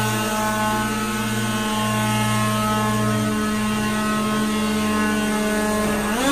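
Leaf blower running at a steady speed with a steady whine while blowing construction dust off a tiled floor; its pitch rises just at the end as it speeds up.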